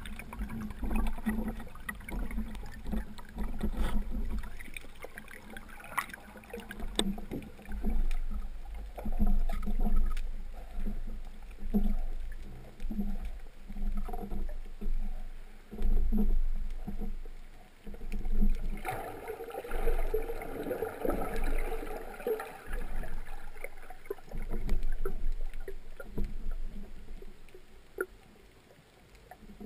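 Water sloshing and gurgling in uneven surges every second or two, with a busier splashing stretch about twenty seconds in.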